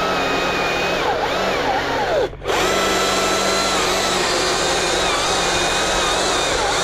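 Motorized tree-work equipment running steadily, with a high whine that wavers in pitch; the sound drops out briefly a little over two seconds in.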